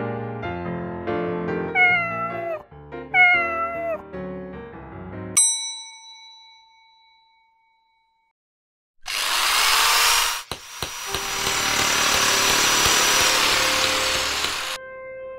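A cat meows twice over piano music. A single bell-like ding follows and rings away. After a pause of near silence, a loud hiss with a faint high whistle runs for about six seconds, with a couple of clicks in it, and stops suddenly.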